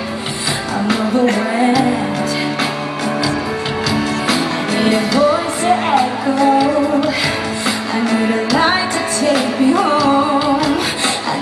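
A female pop singer sings a ballad live, with sustained band accompaniment under her voice.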